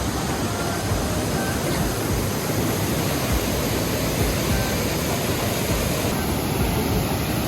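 Waterfall with water rushing down, a steady full roar of falling water.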